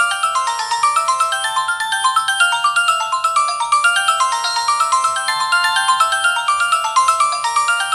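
A Samsung Gravity 2 (SGH-T469) ringtone playing from the phone: a quick melody of short, stepped notes that runs on without a break.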